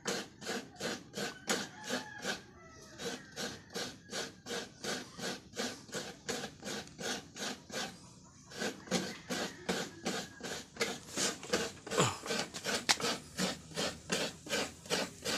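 A coconut half being scraped by hand against the blade of a coconut grater (kudkuran), shredding the white meat. It makes quick, even rasping strokes, about three a second, pausing briefly twice.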